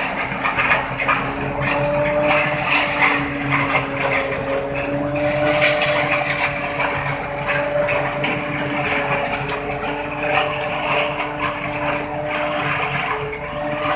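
Tractor-mounted napier (elephant grass) harvester running under load in standing grass, its cutter and blower chopping the stalks and throwing them into a trailer. A steady, slightly wavering mechanical hum lies under a dense, continuous rattle of chopped material.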